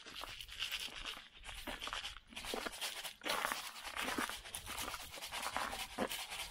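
Boots crunching over icy, snow-covered ground while road salt is scattered onto the ice: a run of irregular gritty, scratchy crunches, a few each second.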